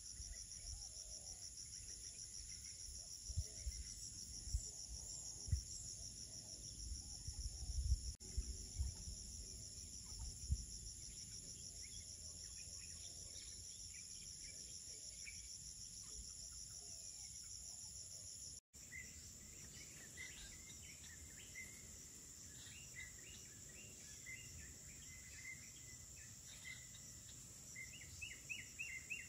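A chorus of tropical forest insects keeps up a steady, high, fast-pulsing trill, with a few low thumps in the first half. After a cut past the middle, birds chirp short repeated notes over the insects.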